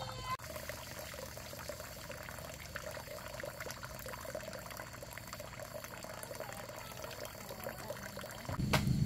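Running or pouring water. A louder low hum starts just before the end.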